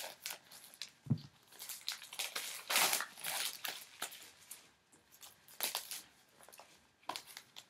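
Plastic shrink wrap and album packaging crinkling and rustling in irregular bursts as a freshly cut-open album is unwrapped and handled.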